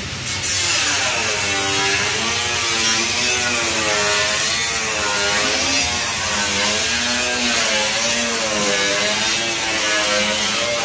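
Compressed air hissing steadily from a paint spray gun, starting just after the beginning. Under it is a motor hum whose pitch wavers up and down about once a second.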